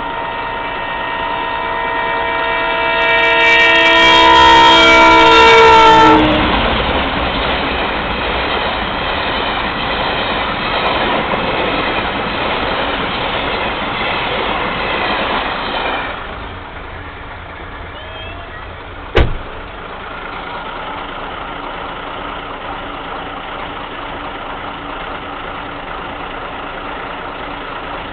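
A loud horn of several tones held for about six seconds, its pitch dropping as it ends. Then about ten seconds of rushing noise that stops suddenly, and a quieter steady hum with one sharp knock.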